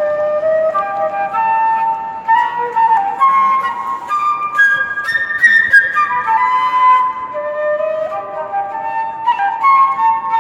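Flute played solo as a live melody, a single line of held and moving notes.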